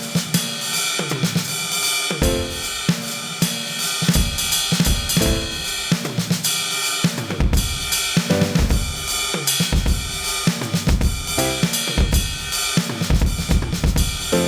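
Drum kit played hard and busily: a constant wash of cymbals and hi-hat over snare and bass drum hits, with tom strikes here and there.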